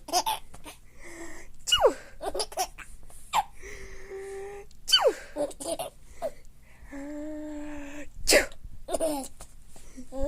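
Three sneezes about three seconds apart, some with a drawn-out "ah... ah" before the sharp "choo". A young child laughs between them.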